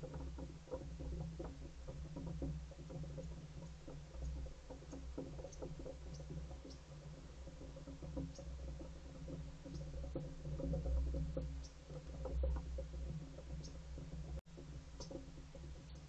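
Soft, irregular taps and clicks of rock pigeons moving about on a wooden deck railing, over a steady low electronic hum from the trail camera. The sound cuts out for a moment near the end.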